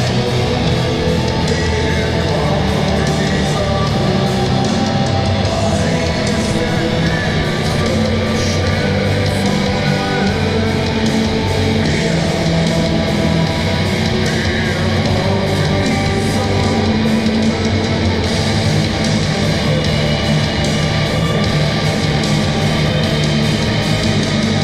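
Heavy metal music with distorted electric guitar, playing steadily at a constant loud level.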